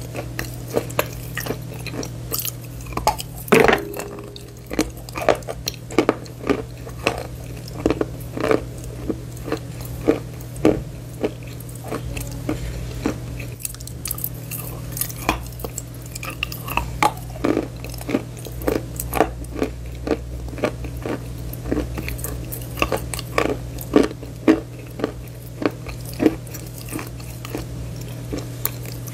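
Bar chalk being bitten and chewed: many sharp, crisp crunches at an uneven pace, over a low steady hum.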